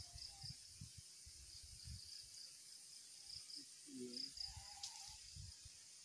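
Faint, steady insect buzz with intermittent repeated chirps, over scattered low thumps. A brief faint voice sounds about four seconds in.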